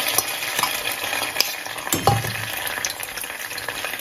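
Ají panca chili paste frying in hot oil in a stainless steel saucepan: a steady sizzle full of small crackles and pops. A dull knock comes about halfway through.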